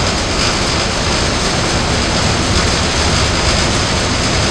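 Staten Island Ferry under way: a steady, loud rumble and rush of engine drone, water and wind.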